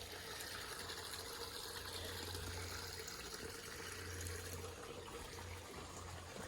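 Steady running water, a creek flowing and trickling.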